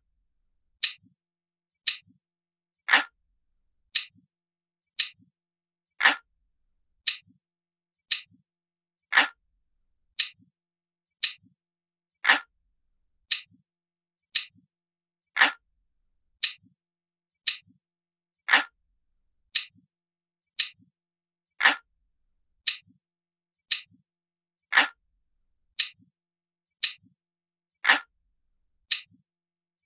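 Crisp, glass-like clock ticking, one sharp tick about every second, with every third tick fuller and louder.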